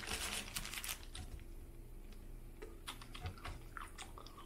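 Faint crinkling of sandwich wrapper paper and light clicks as a sub sandwich is handled, in a dense cluster over the first second and then as scattered single clicks. Near the end come soft mouth clicks as a cucumber slice is eaten with the fingers.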